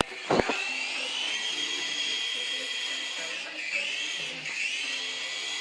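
Small electric motors of a toy RC helicopter spinning up to a steady high whine, rising in pitch over the first second, with two brief dips in pitch near the end as the rotor speed changes.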